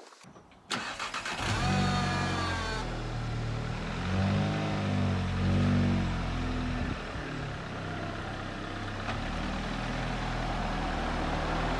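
Recovery truck's engine starting up and running, swelling twice as it is revved. A whine falls in pitch a second or two in, and another whine rises near the end.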